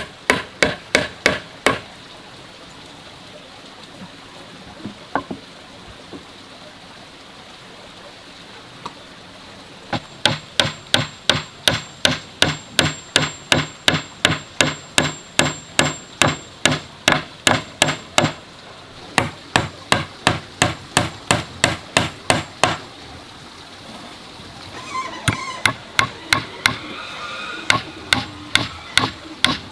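Hammer driving nails into wooden boards: a quick run of strikes, a pause of several seconds, then steady runs of about three strikes a second broken by short stops.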